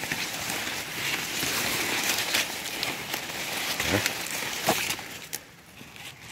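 Maize leaves rustling and crackling as they are pushed aside and brush past, dying down after about five seconds.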